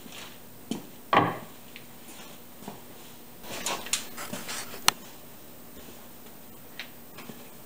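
Wooden boards being handled on a workbench: a few short knocks and clatters, the loudest about a second in, then a cluster of lighter knocks ending in one sharp click.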